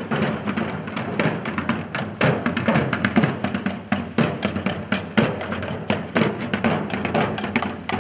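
Drums beating in a procession, many strokes over a steady low hum.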